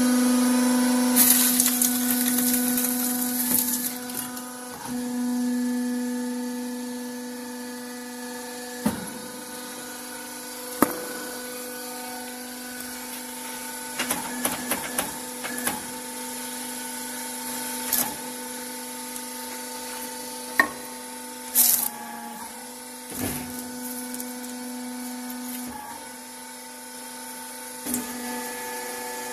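Steady electric hum of a 4 kW MR-T motor-stator recycling machine's hydraulic power unit running, one strong low tone with overtones. It is broken by a few sharp metal clanks and two short bursts of hiss, the longer one starting about a second in.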